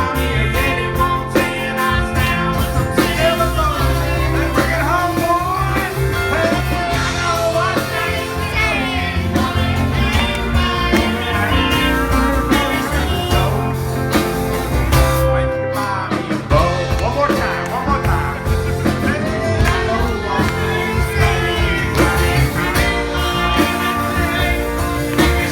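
Live band playing a country-rock song, with singing over electric guitar and a steady low rhythm section. There is a brief break about fifteen seconds in.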